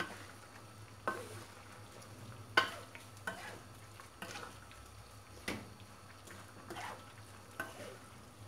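Wooden spatula stirring and scraping vegetables and tempe around a wok, about one scrape a second, the loudest about two and a half seconds in, over a low steady hum.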